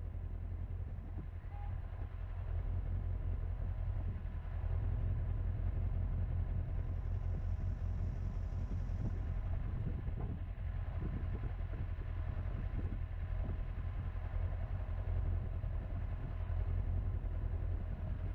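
Honda CBR1000RR's inline-four engine idling at a standstill: a steady low rumble that gets a little louder a few seconds in.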